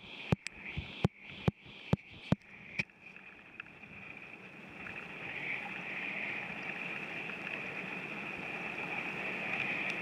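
Flowing mountain-stream water heard through a camera held underwater: a steady rush with a bright hissing edge that swells a little after about three seconds. A run of about eight sharp knocks comes over the first three seconds.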